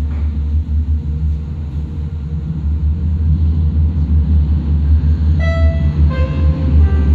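Milan Metro AnsaldoBreda/Hitachi 5500-series train approaching through the tunnel behind the platform screen doors: a steady deep rumble that grows slightly louder. From about five seconds in, a few pitched tones step downward.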